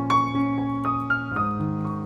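Background piano music: a gentle melody of single notes over sustained bass notes.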